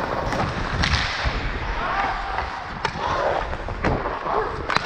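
Ice hockey skates scraping and gliding on rink ice, with a few sharp clacks of a stick blade handling the puck.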